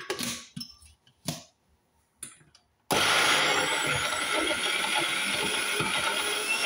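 A few clicks and knocks as the mixer-grinder jar is set on its base. About three seconds in, the electric mixer grinder's motor starts suddenly and runs steadily at full speed on soaked green moong dal with almost no water, a mix too dry for the blades to grind.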